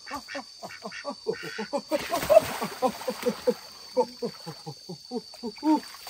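A duck quacking in a rapid run of short calls, about four a second, each one falling in pitch. A splash of water breaks in about two seconds in.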